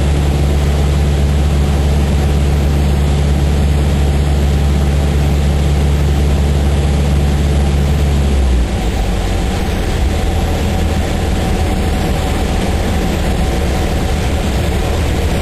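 Cabin sound of a Cessna 152's four-cylinder Lycoming engine and propeller running under power, with a steady rush of airflow. About eight and a half seconds in, the engine note drops abruptly to a weaker, lower drone as the power is pulled off for a simulated engine failure.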